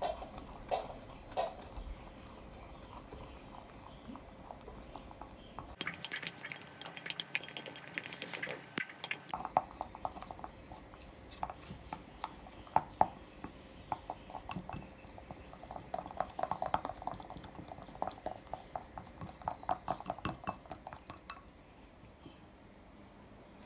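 Dishes and cutlery clinking and knocking in a kitchen: an irregular run of light, quick clicks and taps, busiest in the second half.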